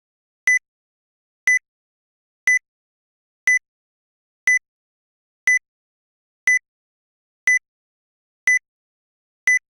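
Countdown timer sound effect beeping once a second: ten short, identical high-pitched electronic beeps with silence between, ticking off the seconds of a 10-second guessing countdown.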